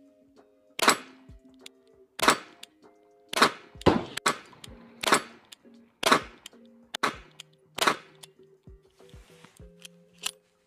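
Ruger LCP II .22 LR micro-pistol firing a string of about eight shots, roughly one a second, over background music. The string stops with the pistol failing to eject.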